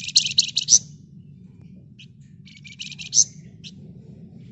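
Flamboyan songbird giving rapid, high, rattling chatter: a fast burst of notes at the start and another about two and a half seconds in, with single short chirps between and after. A steady low hum runs underneath.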